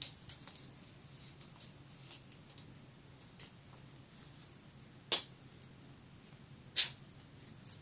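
Knitting on circular needles: quiet handling of the work as the stitches are moved on the needles, with faint scattered clicks and two sharper clicks of the needle tips, about five and about seven seconds in.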